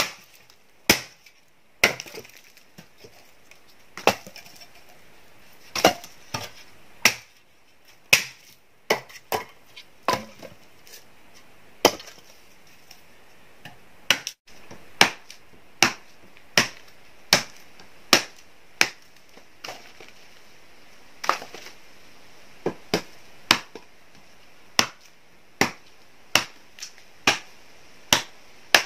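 Wood being chopped: sharp, separate wooden knocks at an uneven pace of about one a second, over a steady high hiss.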